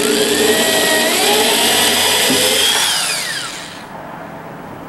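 Cordless drill driving a screw through a steel door hinge into the wooden door. Its motor whine climbs gradually, then winds down and stops about three and a half seconds in.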